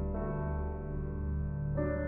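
Background music: slow, sustained keyboard chords over a steady low drone, the chord changing just after the start and again near the end.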